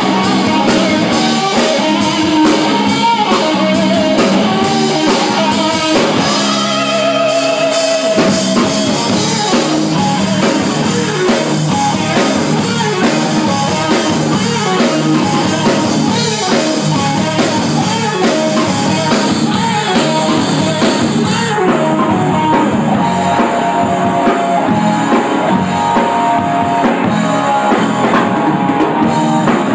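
Live rock band playing loudly: electric guitars, drum kit and a singer. About six seconds in the drums stop for a moment, leaving the guitars ringing, then the full band comes back in.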